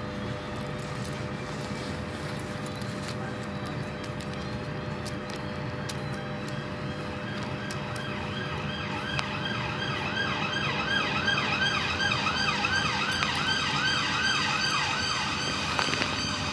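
Emergency vehicle siren in a fast yelp, rising and falling about three times a second. It comes in about halfway through, grows louder, then fades, over a steady low hum.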